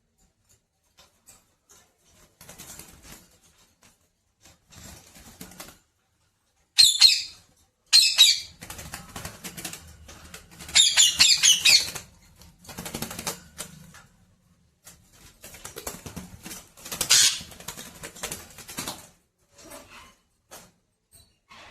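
A pet parrot giving several sharp, high-pitched squawks, the loudest about seven and eleven seconds in, with bouts of wing-flapping and rustling between them.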